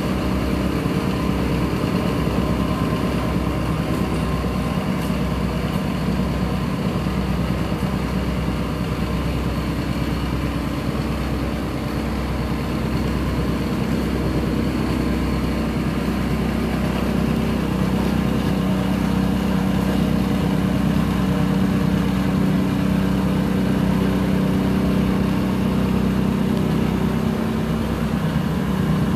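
Petrol-engined tamping rammer (jumping jack compactor) running at working speed, its foot pounding rapidly and steadily into loose dirt fill to compact a floor base.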